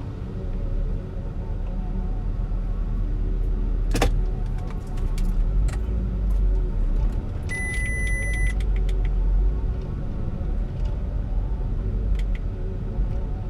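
A motor vehicle being driven, with a steady low engine and road rumble. There is a sharp click about four seconds in, and a single electronic beep lasting about a second a little past halfway.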